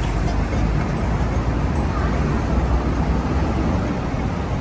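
Steady outdoor street noise with a heavy low rumble, like passing traffic.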